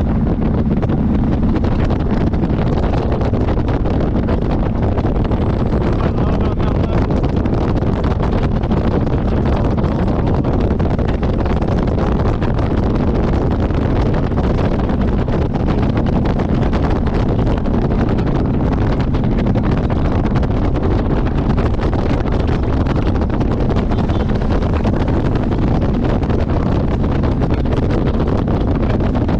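Motorcycle running steadily at cruising speed under heavy wind noise on the microphone.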